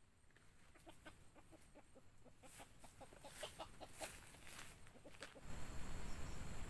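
Red junglefowl rooster giving a quick run of short clucks, several a second. Near the end the clucking stops and a steady hiss takes over.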